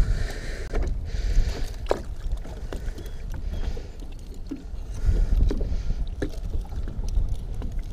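Lake water lapping against the side of a boat, with wind rumbling on the microphone and a few sharp clicks scattered through.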